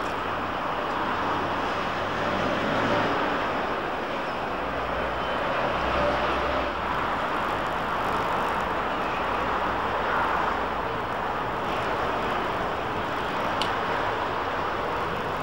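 Steady street traffic noise: a continuous hum of passing road vehicles with no single event standing out.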